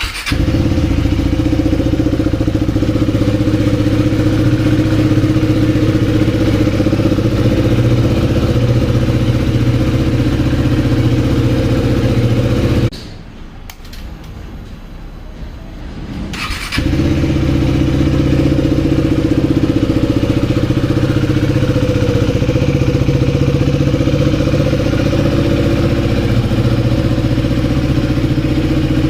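KTM Duke 390 BS6 single-cylinder engine with an Austin Racing aftermarket exhaust cold-starting and idling steadily. About 13 seconds in the engine note cuts out. About four seconds later it starts again and settles back into a steady idle.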